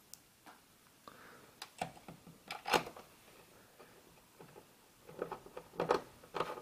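Scattered clicks, taps and knocks of screws, a screwdriver and plastic and metal computer parts being handled during reassembly of an all-in-one PC, with one louder knock about three seconds in and a quick run of clicks near the end.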